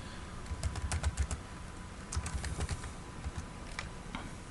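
Computer keyboard typing in a few short runs of keystrokes. A faint steady tone sits underneath.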